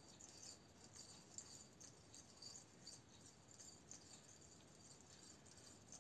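Fishing reel being wound by hand, spooling line: faint, quiet ticking of the reel with light handling noise.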